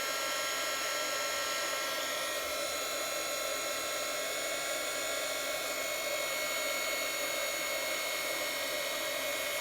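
Embossing heat tool running steadily, its fan blowing with a constant whine of several steady tones, as it melts embossing powder.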